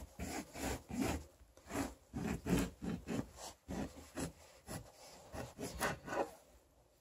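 Kitchen knife sawing back and forth through the rind and flesh of a blood orange, in short scraping strokes about three a second, which stop shortly before the end as the cut is finished.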